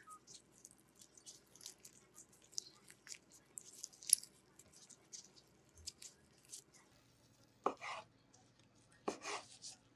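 Smoked chicken being pulled apart by gloved hands: faint, irregular tearing and crackling of the meat. Near the end come two sharper strokes, a knife cutting through the chicken onto a wooden board.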